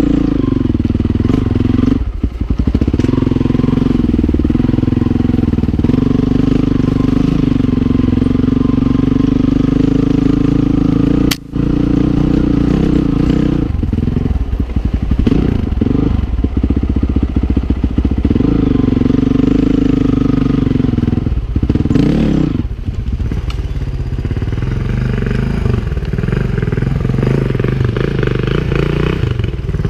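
2008 Honda CRF450R's single-cylinder four-stroke engine running at low revs under the rider's throttle. Its note is mostly steady, with several short drops where the throttle is rolled off and a brief gap about eleven seconds in.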